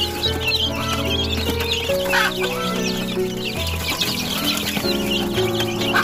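A brood of young chicks peeping constantly, many quick high chirps overlapping, over background music with held notes and a low bass.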